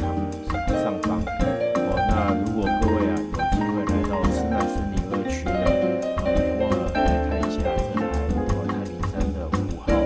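Background music: a jazz-style tune with piano over a steady drum beat.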